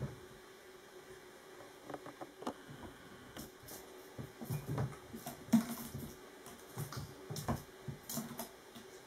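Bengal kittens playing on a bare wooden floor: scattered light taps, clicks and thumps of paws and a batted stick and toy on the boards, the loudest about halfway through.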